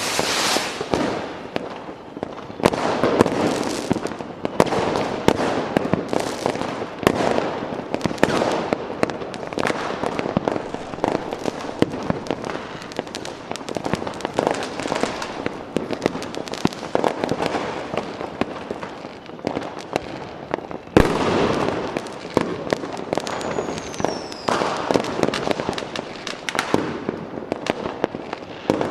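Fireworks going off: a dense run of overlapping bangs and crackling. One sharp, loudest bang comes about two-thirds of the way through, followed shortly by a brief falling whistle.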